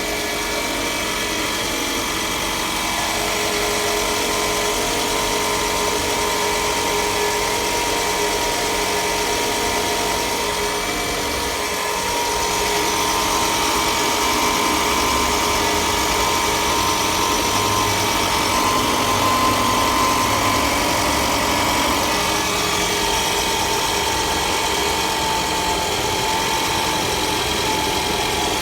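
Toyota Camry XV40's 2.4-litre four-cylinder engine running cold, steady, with a small rise in engine sound a few seconds in and again about twelve seconds in. It makes an extraneous noise from cold that others have said is the timing chain.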